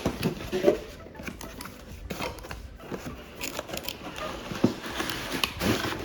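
Cardboard box and packaging being handled and pulled apart, with rustling and scattered sharp clicks and knocks from the plastic parts inside.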